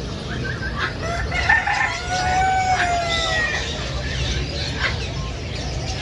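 A bird gives one long call of about two seconds that rises and then falls gently in pitch, with a few short sharp bird calls around it over a steady low background rumble.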